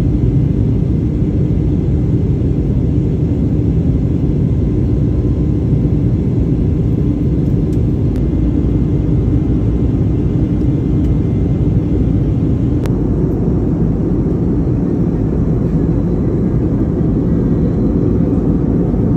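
Steady low roar of a jet airliner's engines and airflow in flight, heard inside the passenger cabin.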